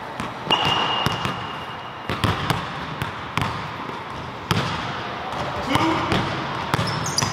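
Basketballs being dribbled on a hardwood gym floor: irregular sharp bounces, several a second at times, with uneven gaps between them.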